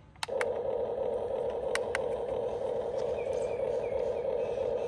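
Huina 1592 RC excavator suddenly starts up with a loud, steady buzzing drone that holds without change, with a few sharp clicks near its start and again about two seconds in.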